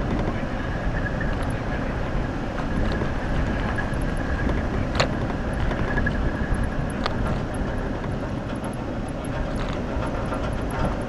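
Jeep Wrangler driving along a dirt trail: steady engine and tyre noise, with a couple of sharp knocks about five and seven seconds in.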